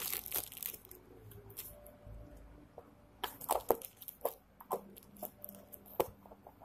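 A thin clear plastic sheet crinkling and crackling under hands as it is smoothed and handled. A rustle comes at the start, then a scatter of sharp crackles from about three seconds in.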